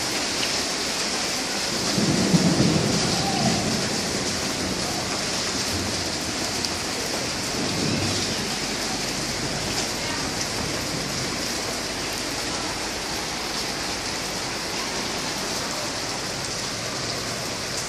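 Heavy rain mixed with small hail falling steadily on wet pavement and awnings, an even hiss. A low rumble of thunder swells about two seconds in, and a fainter one follows around eight seconds.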